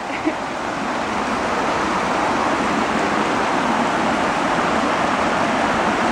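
Small stream rushing over rocks into a pond: a steady rush of water, growing a little louder over the first couple of seconds and then holding.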